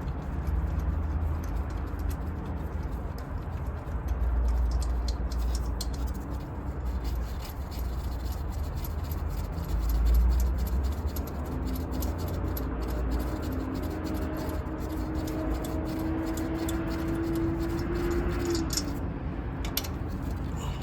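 Ratchet wrench clicking and metal tools clinking as the upper intake plenum bolts on a 3.8 V6 engine are loosened, over a steady low rumble. A steady hum is held for several seconds in the second half.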